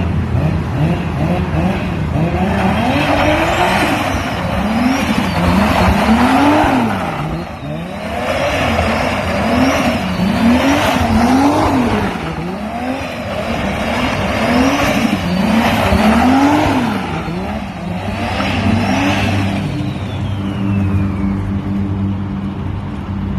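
Toyota Supra engine being revved again and again, about a dozen quick rises and falls in pitch, with a high whistle rising and falling along with each rev. A high whistle falls away a little before the end.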